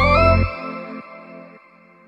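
The dance track ending: the bass and beat cut out about half a second in, and the last held notes fade away.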